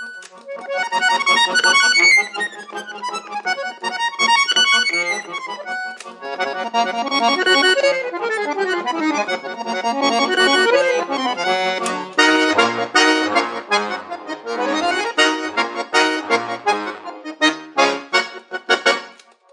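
Solo accordion played fast: rapid descending runs of notes, then from about twelve seconds in, loud repeated chords over bass notes.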